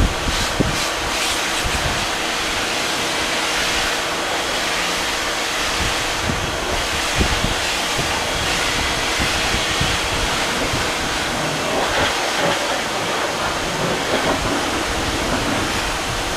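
Karcher K 2.050 electric pressure washer running, its pump humming under the steady hiss of a high-pressure fan spray from the all-purpose wand rinsing a car.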